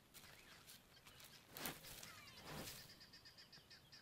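Quiet bush ambience with faint bird calls: thin descending whistles and a quick run of high chirps. Two short, louder sounds come in the middle, about a second apart.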